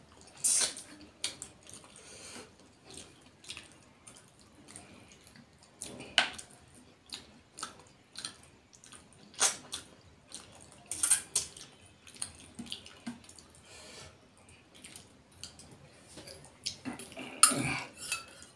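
Wet mouth sounds of eating fish curry and rice by hand: irregular chewing, lip smacks and sucking clicks. Near the end a steel bowl and spoon clatter over the plate.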